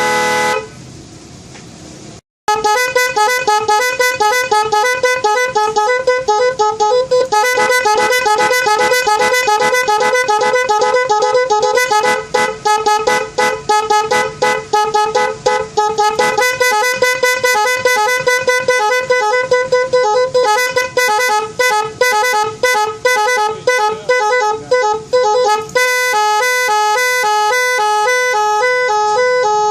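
Multi-tone electric snail horn cycling through its melody sounds: quick successive honks that change pitch, after a short gap about two seconds in. Near the end it switches to a pattern of two alternating tones.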